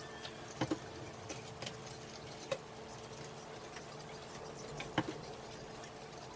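Quiet eating sounds: a few scattered soft clicks and taps from chewing McNuggets and handling the food, the loudest about half a second in and about five seconds in, over a faint steady hum.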